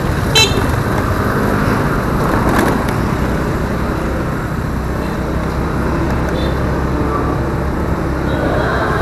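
Honda scooter riding in traffic, with steady low engine and road noise. A short, high vehicle-horn toot sounds about half a second in.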